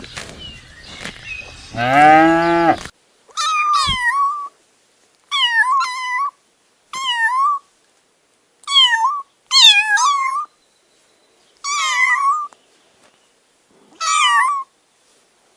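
A cow moos once about two seconds in. Then a cat meows seven times, short high meows each under a second long, separated by brief silences.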